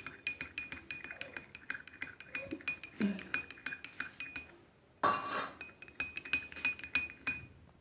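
A spoon stirring honey into hot milk in a glass, clinking against the sides about five or six times a second with a ringing glassy tone. The stirring stops for a moment about four and a half seconds in, then starts again after a short rustle.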